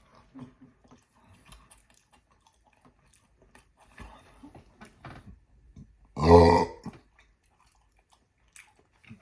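Soft chewing and mouth sounds, then about six seconds in a man lets out one loud, deep burp lasting under a second.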